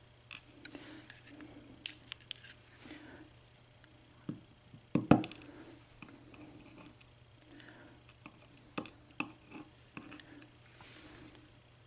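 Irregular light clicks and taps of small metal lock pins and tools being handled while a Sargent mortise cylinder's pins are taken out, with one louder knock about five seconds in.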